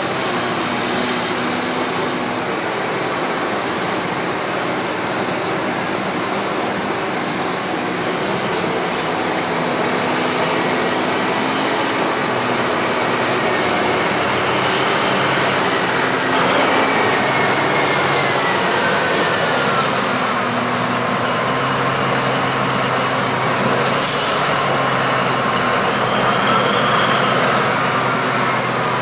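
Komatsu PC1250 hydraulic excavator running: a steady diesel engine drone with a whine that slides down in pitch through the middle and climbs again near the end. There is a short high hiss about 24 seconds in.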